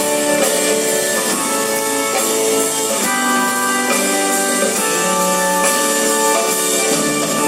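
Live band playing a slow song's instrumental passage: held guitar and keyboard chords changing every second or so, over light drums.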